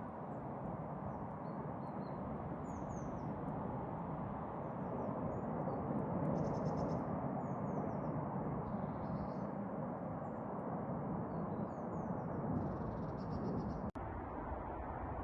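Small birds chirping and twittering, with a couple of short buzzy trills, over a steady rushing background noise. The background noise cuts out for an instant near the end.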